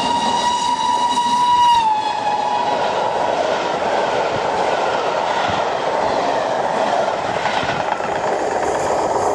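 Express steam locomotive passing at speed, sounding one long whistle blast whose pitch drops as the engine goes by about two seconds in. Its train of coaches then rushes past with the steady rumble and clatter of wheels on rail.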